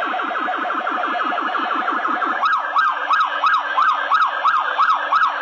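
Electronic sound effects from a toy robot's sound chip, played slowed down. First comes a fast pulsing tone, about six beeps a second. About halfway it changes to a siren-like wail sweeping up and down about three times a second.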